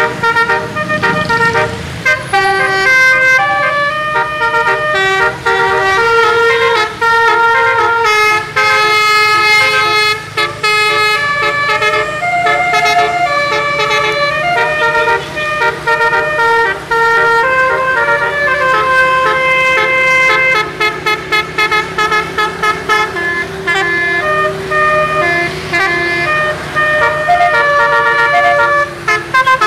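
Bus telolet horn, a multi-trumpet musical air horn, playing a melody of quick changing notes one after another, with a low steady hum underneath.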